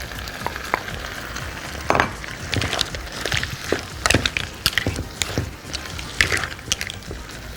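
Stirring in a pan of frying seafood, sausage and vegetables: irregular knocks and scrapes of the utensil against the pan over a faint sizzle.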